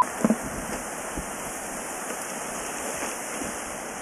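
Steady even hiss from a failing microphone, with a couple of handling bumps right at the start.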